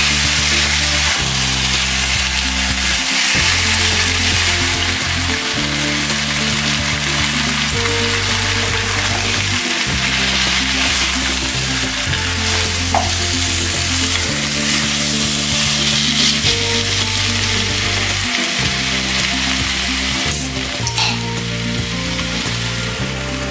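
Pork belly pieces frying and sizzling in a nonstick wok, stirred with a silicone spatula, over background music with a low bass line.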